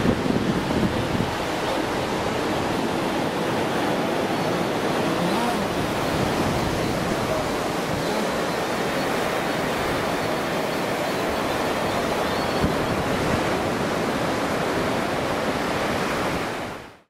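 Steady wash of ocean surf breaking on a sandy beach, with wind buffeting the microphone; it fades out at the very end.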